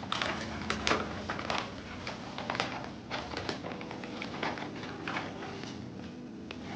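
Irregular clicks, taps and scrapes of small objects being handled at close range, with a low steady hum underneath.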